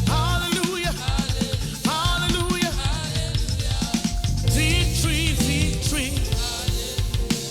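Live church worship band playing between sung lines, with drum kit and bass keeping a steady beat under held keyboard chords, and a voice or lead instrument gliding over it.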